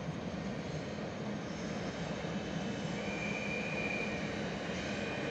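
Electric multiple unit train running along station tracks with a steady rumble of wheels on rails. A brief high squeal comes in about three seconds in.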